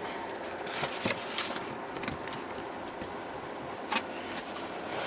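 Packaging being handled as a small accessory kit is opened and its contents are pulled out: rustling and crinkling with a few sharp clicks and snaps.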